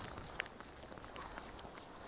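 Faint footsteps on bare lake ice, with a few light ticks and a sharper click about half a second in.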